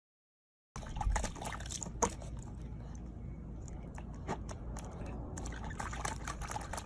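Water splashing and dripping as a corgi puppy dunks its muzzle into a small green plastic basket of water, starting about a second in, with many small splashes and drips over a low rumble.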